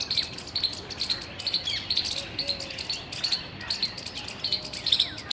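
A squirrel giving a rapid, steady series of loud, sharp chirps, about three a second. Faint calls of other birds sound underneath.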